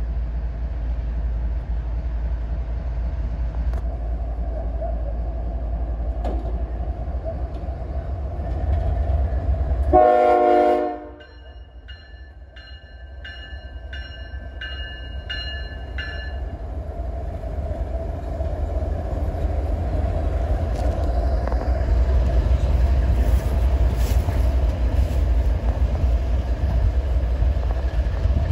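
GE ES44AC diesel-electric locomotive running light, its diesel engine rumbling steadily as it approaches. About ten seconds in, its Nathan K5HL five-chime horn gives one short blast, followed by a bell ringing about twice a second for several seconds. The engine rumble then builds again as the locomotive passes close by.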